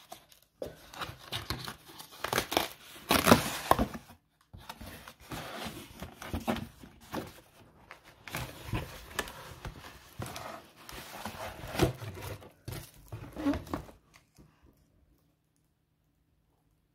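Crinkling and tearing sounds in irregular bouts, as of wrapping or packaging being handled close to the microphone, stopping about fourteen seconds in.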